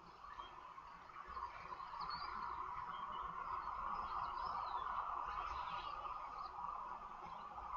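Outdoor bush ambience: a steady hissing drone that swells a little in the middle, with a few faint, scattered bird chirps.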